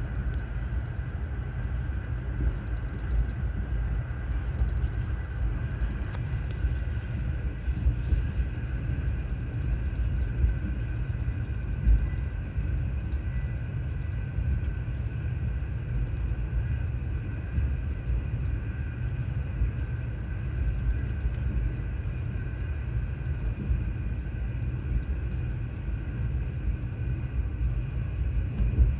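Train running steadily along the track: a continuous low rumble with a faint steady whine higher up.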